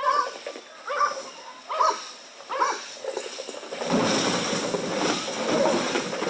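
A protection-trained dog barking four times, a little under a second apart, then loud crunching and rustling of cardboard boxes as the dog tears through a pile of them.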